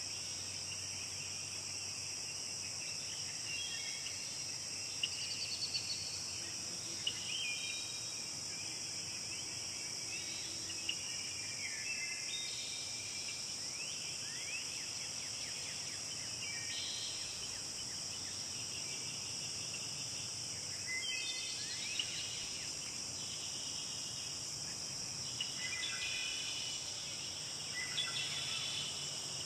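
A steady high-pitched chorus of insects, with songbirds singing short, varied phrases every few seconds over it.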